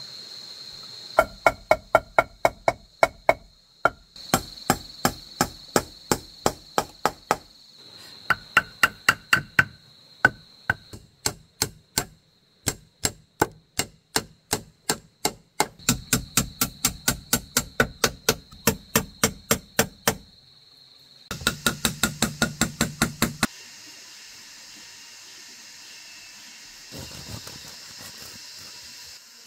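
A hammer striking in fast runs of about five blows a second, in several bursts broken by short pauses. The blows stop a few seconds before the end.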